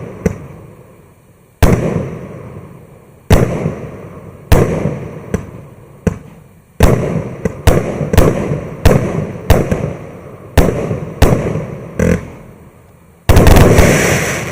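A 49-shot consumer firework battery (cake) firing its shots one after another, each a sharp bang followed by a fading rumble. A close run of bangs comes near the end.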